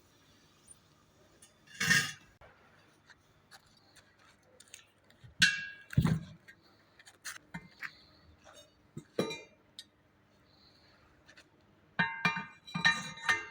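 Scattered metal clanks and clinks of steel tools against a heavy truck wheel rim: single knocks a few seconds apart, then a quick run of ringing clinks near the end.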